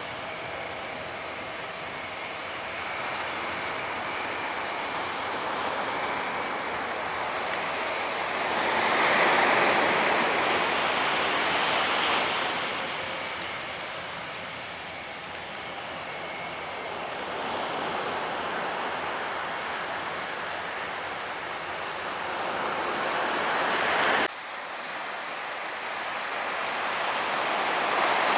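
Waves washing onto a beach, a steady noise that swells with each break, loudest about a third of the way in and again near the end. It cuts off abruptly about 24 seconds in and then builds again.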